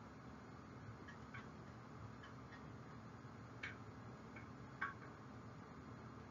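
Faint clicks and taps of a plastic camcorder battery being handled against a plastic device case, a few scattered light ticks with two sharper clicks in the latter half, over a faint steady hum.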